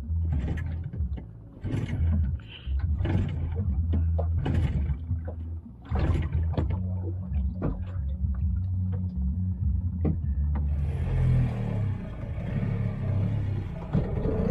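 Small fishing boat's engine running with a steady low rumble, with irregular knocks and clatter on board. About ten seconds in, a rushing hiss of wind and water joins as the boat gets under way.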